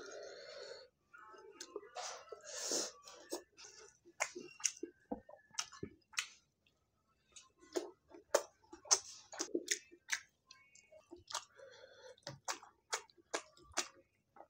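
A person chewing food close to the microphone: irregular sharp mouth clicks and short chewing noises, pausing briefly about halfway through.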